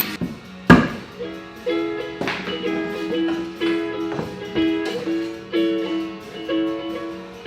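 Background music: a plucked-string melody on ukulele or guitar in evenly paced notes, with one sharp knock a little under a second in.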